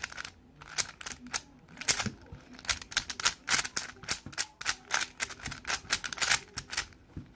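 MoFang JiaoShi MF3RS2 plastic 3x3 speed cube being turned quickly by hand, its layers clacking in a fast, uneven run of sharp clicks. The cube turns very loose.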